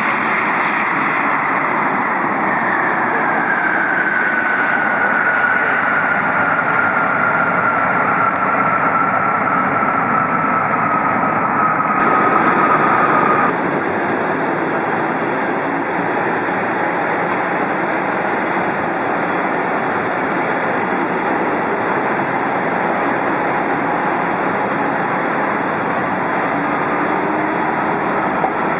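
Jet airliner engines running, a loud steady rush with a high whine that slowly falls in pitch and stops about halfway through. After that the jet noise carries on steadily.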